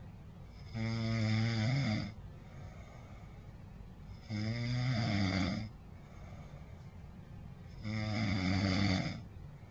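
A person snoring: three snores, each lasting a little over a second, coming about every three and a half seconds with quiet breathing pauses between them.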